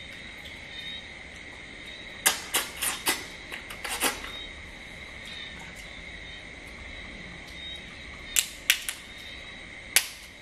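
Cooked crab shell cracking as it is broken apart by hand: a quick run of sharp cracks a couple of seconds in, three more later, and a last crack near the end.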